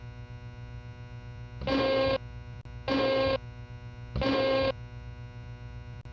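Three short, identical data bursts of an Emergency Alert System end-of-message (SAME digital tones), about a second apart, over a steady background hum. They mark the close of the alert.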